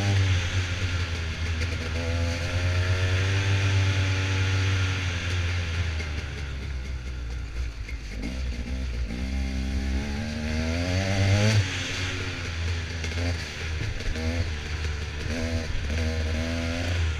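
ATV engine running under throttle while riding a dirt trail, over a steady rushing hiss. Its pitch rises steadily and drops sharply about eleven and a half seconds in, then comes in several short throttle blips near the end.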